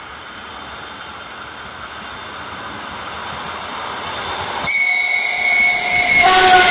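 Eight-car ER9M electric train approaching, its running noise growing steadily louder. About two thirds of the way in, it sounds a very loud horn: a higher note first, then a lower, louder note that is still sounding at the end.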